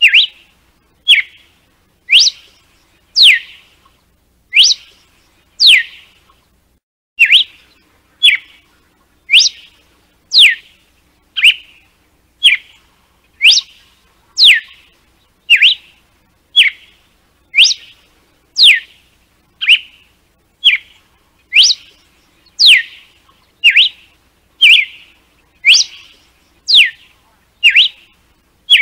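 Red-cowled cardinal (galo-de-campina) singing its 'açoite' (whip) song: a steady string of loud, sharp notes about one a second, fast high-to-low whistled sweeps alternating with short clipped notes.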